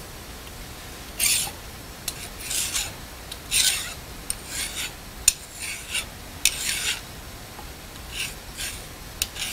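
Flat hand file deburring the freshly face-milled edge of a steel block: a dry scraping rasp with each stroke, in short, somewhat irregular strokes about one a second.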